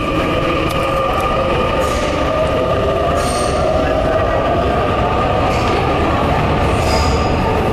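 Mexico City Metro train running through the station: a steady loud rumble with high whining tones, one of them slowly rising in pitch.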